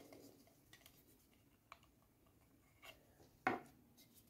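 Quiet handling of a Skullcandy Sesh earbud charging case: a few light ticks and rubs, then a louder click about three and a half seconds in as the lid is shut.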